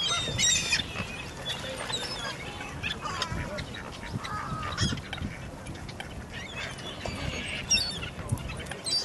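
A flock of ducks and other waterfowl calling over one another while crowding for feed: many short, overlapping calls throughout.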